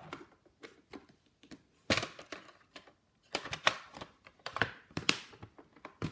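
Plastic VHS clamshell cases being handled and stacked: an irregular string of clicks and knocks with short scraping rustles, the loudest about two seconds in and again between three and five seconds.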